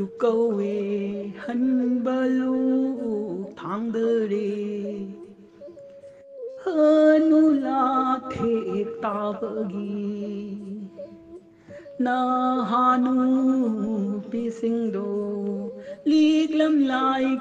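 A voice singing a slow melody in long held, wavering phrases, with short breaks between phrases.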